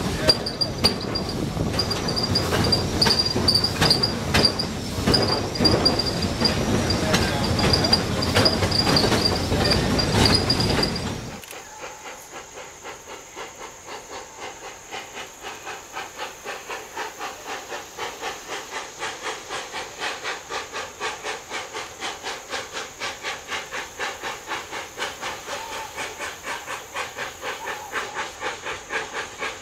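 Train wheels clattering over the rails with an intermittent high squeal. About eleven seconds in, this cuts abruptly to the steady exhaust chuffing of Southern Railway 2-8-0 steam locomotive #154 working at a distance, about two and a half beats a second.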